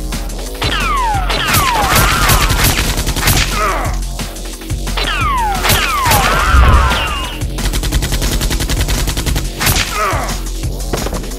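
Rapid volleys of automatic gunfire sound effects, with falling whistling tones in each volley, over electronic background music.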